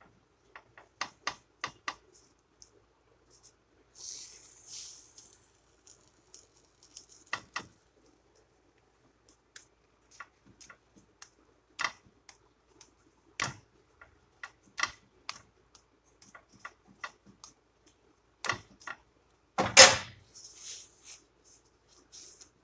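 Irregular clicks and taps of a slotted stainless-steel spatula against a pan as a filled flour tortilla is folded and pressed, with a brief hiss about four seconds in and one louder clatter near the end.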